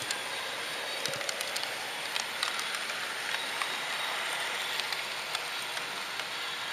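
H0-scale model train running along the track: a steady hiss with small irregular clicks from the wheels on the rails.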